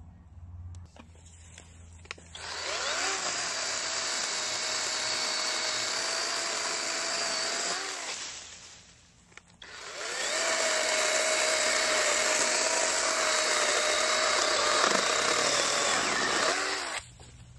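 Total 20-volt cordless electric chainsaw cutting through a tree branch in two runs. Each run winds up with a rising whine, holds a steady high whine through the wood, then winds down with a falling whine. The first run starts about two seconds in and stops near eight seconds; the second starts near ten seconds and stops shortly before the end.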